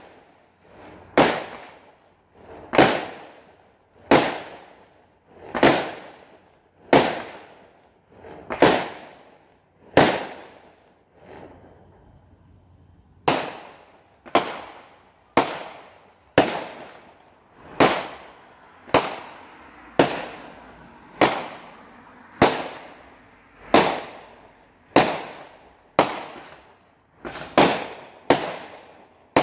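Fireworks going off in a long, regular series of loud bangs, about one every second and a half, each trailing off in an echo. There is a short pause about 12 seconds in, and near the end the bangs come a little closer together.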